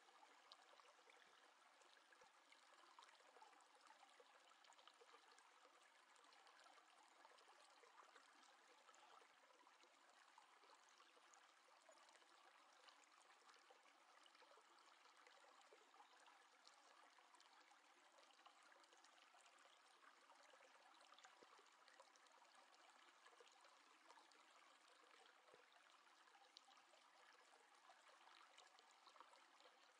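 Near silence: a faint steady hiss with scattered tiny ticks.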